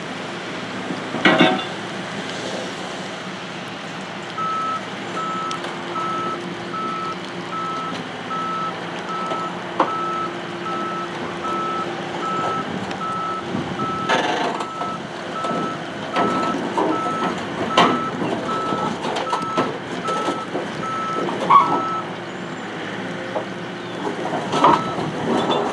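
Takeuchi TB285 mini excavator's diesel engine running as the machine tracks backward off a steel trailer, with a pulsing reversing alarm beeping steadily from about four seconds in, pausing briefly near the end and starting again. Loud clanks of the steel tracks on the trailer deck and ramps come several times.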